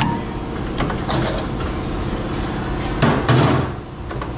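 Metal clinks from a wrench tightening the arbor nut on a brake lathe, then a heavier clunk about three seconds in, over a steady electric machine hum.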